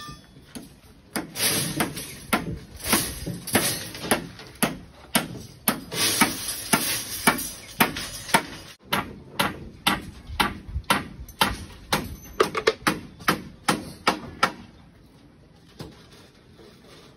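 Hammer blows on the construction site, a steady run of knocks about two a second that stops about fourteen and a half seconds in.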